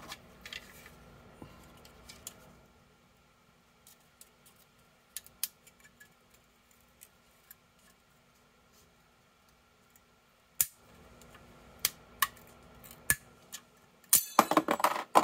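Small screwdriver prying and scraping at a projector lamp's plastic housing and metal lens ring: scattered sharp clicks and ticks, with a quick run of clicks near the end.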